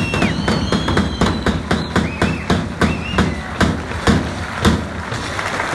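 Crowd clapping in a steady rhythm, about four claps a second, with loud whistles over it.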